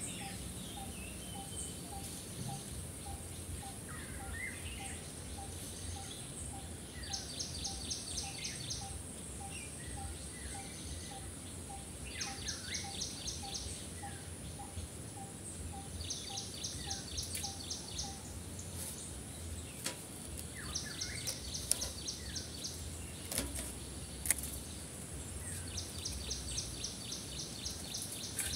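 Garden ambience: a bird gives a quick burst of rapid, high chirps every few seconds, while a softer call pips about twice a second until about eighteen seconds in. A steady high whine and a low rumble run underneath.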